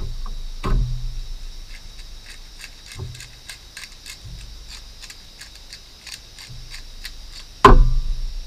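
Hand-held spice grinder being twisted, giving a quick run of small, even clicks, then a loud knock near the end.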